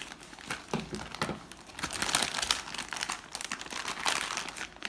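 Packaging crinkling and rustling in quick irregular bursts as a newly delivered tripod is unwrapped.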